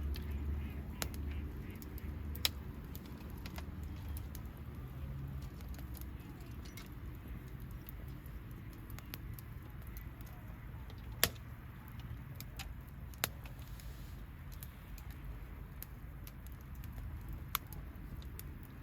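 Wood bonfire crackling: scattered sharp pops and snaps over a low steady rumble, the loudest pops about 2, 11 and 13 seconds in.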